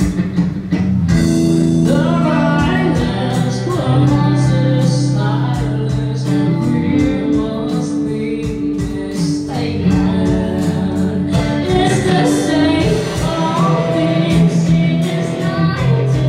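Live female vocalist singing a song into a microphone, backed by electric guitar, with a steady beat underneath.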